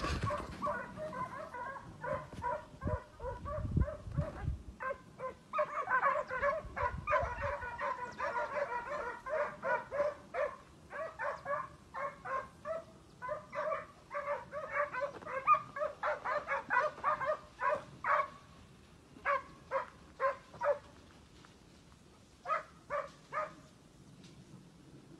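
Hunting hounds baying on the trail, giving tongue in fast runs of yelping barks while working a scent. The barking breaks into shorter bursts with pauses near the end, and there is low rumble on the microphone in the first few seconds.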